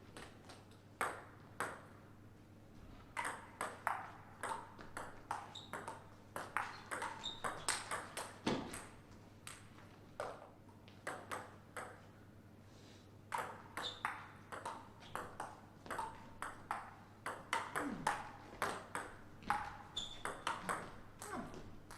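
Table tennis rallies: the ball clicking off rackets and the table in quick alternating strikes, with short pauses between points.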